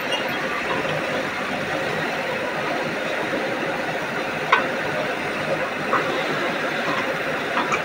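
JCB 3DX backhoe loader's diesel engine running steadily as the backhoe digs and lifts a bucket of soil, with a few short knocks at about four and a half, six and seven and a half seconds in.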